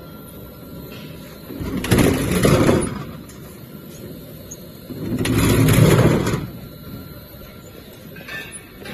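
Filled plastic jerrycans running down a stainless steel gravity roller conveyor, two in turn. Each run is a noisy rumble of about a second that swells and fades, and the second is louder. A faint knock comes near the end.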